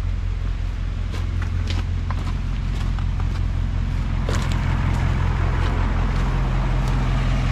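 1969 Massey Ferguson tractor engine idling steadily, a little louder after about four seconds. Footsteps crunch on gravel over it between about one and five seconds in.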